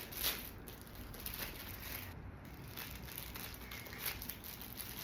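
Faint handling noise of a new handbag and its packing material being pulled off: soft rustling with a few light clicks and taps.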